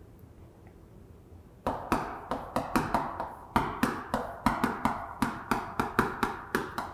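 Chalk writing on a chalkboard: a quick run of sharp taps and short scrapes, about four a second, starting about a second and a half in after a quiet start.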